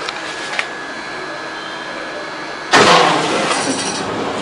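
A large cardboard box being handled on a table. About two-thirds of the way in there is a sudden loud scrape and thump that dies away over a second, over a faint steady high tone.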